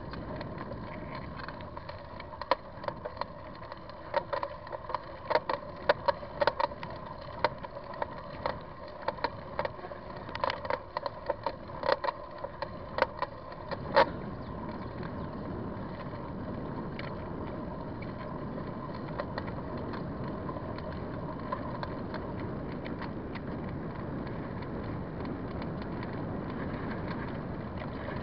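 Ride noise from a bicycle on a trail: steady wind and tyre rush, with irregular sharp clicks and rattles through the first half that stop about halfway through.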